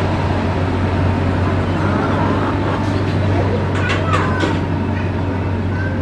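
Diesel engine of a motor grader running steadily with a constant low hum while the machine grades a dirt road. A few short, high, sliding squeaks sound over it around the middle.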